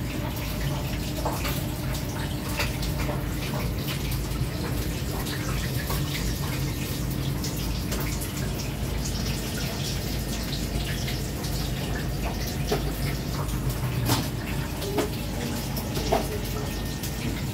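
Kitchen background noise: a steady low hum under an even hiss, with scattered light clicks.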